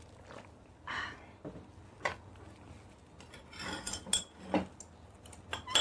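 Chopsticks tapping and clinking against a bowl: a scattered handful of short, light clicks, more of them close together in the second half.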